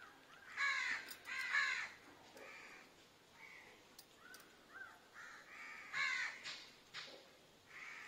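Crows cawing: two loud caws about a second in, fainter calls after them, and another loud caw about six seconds in.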